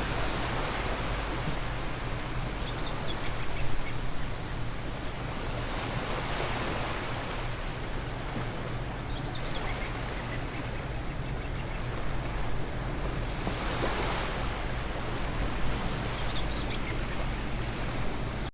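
Ocean waves washing in, swelling about every seven seconds, over a steady low hum.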